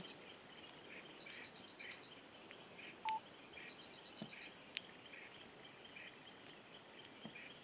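Quiet roadside ambience: a faint high chirp repeating about every half second, with one short beep about three seconds in and a couple of faint clicks.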